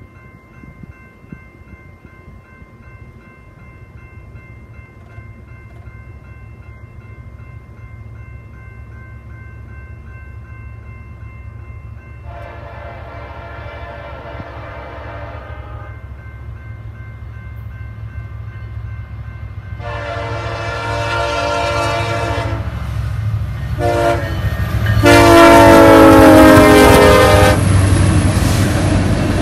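Diesel freight locomotive horn sounding the grade-crossing signal: two long blasts, a short one and a final long one, growing louder as the train approaches. The locomotives' engines and the train's rumble build underneath and pass close by near the end.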